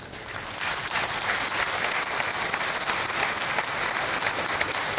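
Audience applauding: many people clapping at once. It builds quickly at the start and keeps going steadily.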